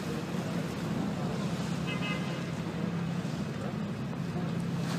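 Waterfront ambience: wind and choppy water, with a steady low engine drone underneath.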